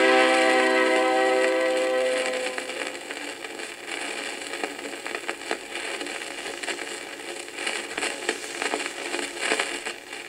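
A thin vinyl flexi-disc (sonosheet) playing on a turntable: the song's last held chord dies away about two seconds in. After that the stylus runs on in the groove with surface crackle and irregular clicks.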